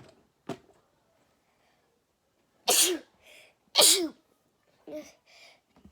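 A child sneezing twice in quick succession, about a second apart, with quick sharp breaths in between and a third sneeze starting right at the end. Two short sharp clicks come first.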